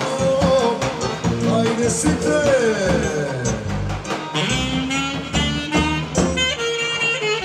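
Live wedding band playing Macedonian folk dance music, an ornamented saxophone melody that slides up and down over a steady drum beat.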